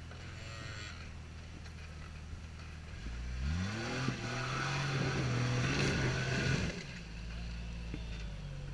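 Jeep Cherokee XJ engine idling, then revved up about three seconds in and held at higher revs for a few seconds as it strains to climb a snowy rock ledge, with the tyres scrabbling over rock and snow. Near the end the revs drop back to idle.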